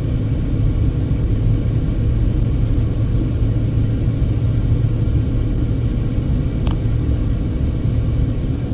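Car driving on the highway, heard from inside the cabin: a steady low rumble of engine and tyre noise with a constant low hum, and one faint tick about two-thirds of the way through.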